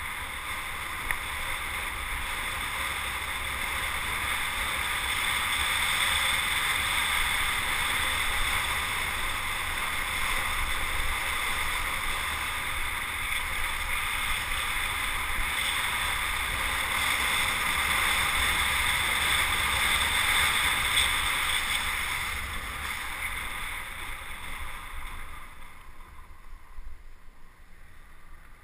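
Wind rushing over the microphone of a camera moving fast downhill. It is a steady hiss and rumble that swells with speed, then eases off over the last few seconds as the rider slows into a hairpin.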